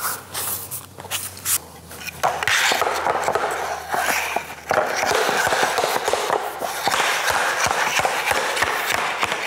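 Tongue-and-groove vinyl plank flooring being driven together with a tapping block: a rapid run of sharp taps from about two seconds in, over a rough scraping noise as the plank joint is knocked home.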